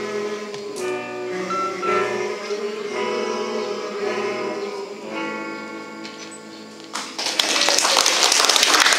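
A group of men singing together with a lead singer on a microphone and an electric guitar, ending on a long held chord that fades. About seven seconds in, applause breaks out.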